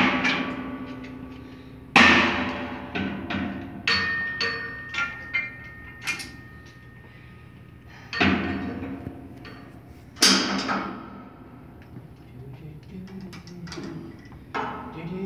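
Cable machine weight stack clanking as the plates are lifted and dropped. There are four loud metal clanks, one at the start, one about two seconds in, and a pair about eight and ten seconds in, each ringing on briefly, with lighter clinks between them.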